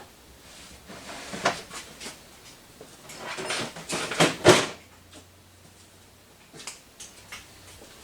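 Metal hand tools clanking and knocking on the engine as a ratchet is worked against tight head bolts, with a cluster of knocks about three to four and a half seconds in and a few light clicks near the end.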